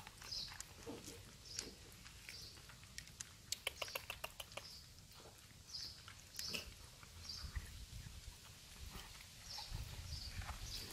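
Several cats eating tuna and dry kibble from a shared plate: faint, irregular chewing, crunching and lip-smacking, with small clicks coming thickest about four seconds in.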